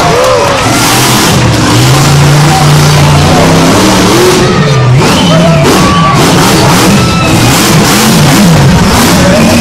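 Monster truck engine revving hard, its pitch swinging up and down quickly over and over in the second half, with loud music playing alongside.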